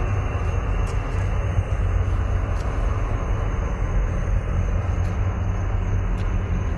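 Steady low rumbling drone of a scary ambient sound-effects track, with a few faint clicks high above it.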